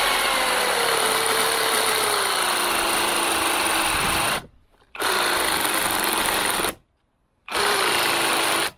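Parkside 20 V cordless reciprocating saw cutting through a tree branch, running in three stretches with two short stops, its motor pitch sinking each time as the blade bites into the wood and the saw slows under the load.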